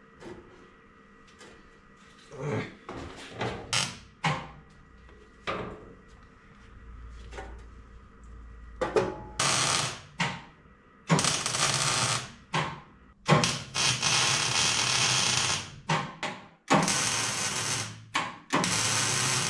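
Sheet-steel fabrication: a few light knocks, then a run of loud bursts of harsh noise, each lasting one to two and a half seconds, with short gaps between.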